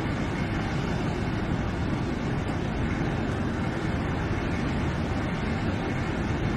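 Steady low rumble of a running vehicle, engine and road noise with no change in pace.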